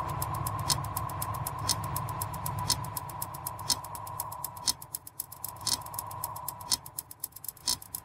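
Clock-like ticking sound effect marking a countdown: a louder tick once each second with softer, quicker ticks between, over a steady low drone that fades out about five seconds in.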